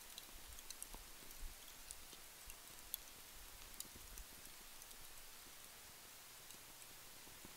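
Kindling and charcoal fire crackling faintly, with sparse sharp pops and ticks. The pops are busiest in the first half, and the loudest comes about three seconds in.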